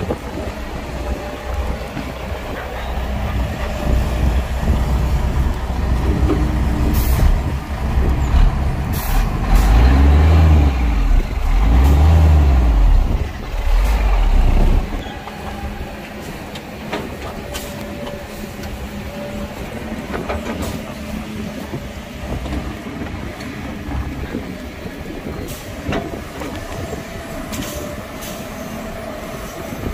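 Heavy diesel machinery running with a deep rumble, revving hard twice in the middle and then dropping back to a lower steady run. Several short sharp hissing or clanking noises cut in over it.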